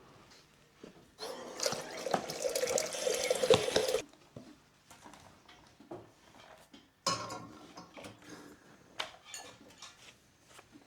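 Water running from a tap into a container for about three seconds and then shut off, followed by a few light knocks and clinks.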